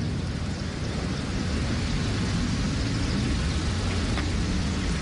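Steady low rumble of wind on the microphone, with a faint, crisp click about four seconds in as a golf club strikes the ball on a chip shot.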